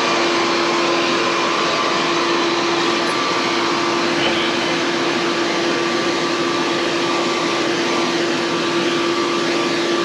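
Air blower running steadily with a constant motor whine, blasting air into a furnace cabinet to clear dust off the blower fan and controls.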